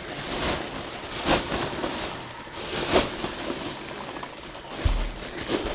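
Rustling and crinkling of packaging as a boxed football helmet is unwrapped and handled, with a few sharp crackles and a low thump near the end.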